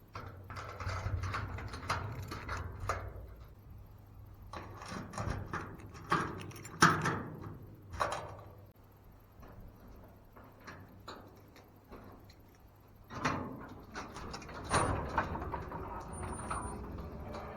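Bicycle parts being handled and worked on: irregular mechanical clicks, knocks and rattles.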